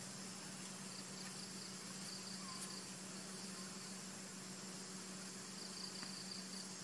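Insects chirring: a high trill that comes and goes over a steady high hiss, with a faint low steady hum underneath.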